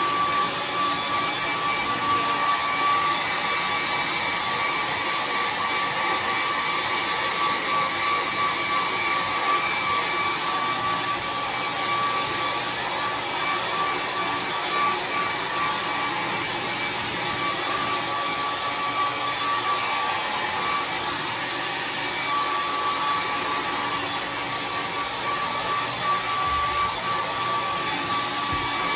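Handheld hair dryer running steadily, blowing air onto hair: an even rush of air with a steady motor whine over it.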